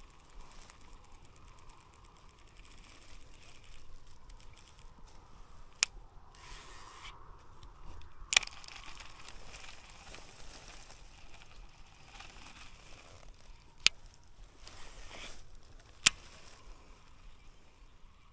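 Shimano Aldebaran baitcasting reel worked through two casts: each time a sharp click, a short high whir of the spool paying out line, then another sharp click as the reel is re-engaged. Quieter handling and cranking noise runs between the casts.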